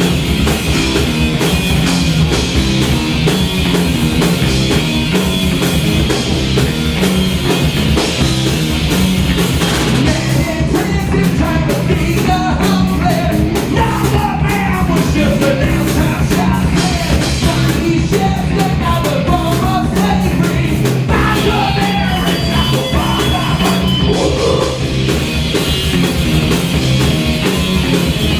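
Live heavy stoner-rock band playing loud: drum kit, distorted electric guitar and bass guitar, with a wavering lead melody line over the middle stretch.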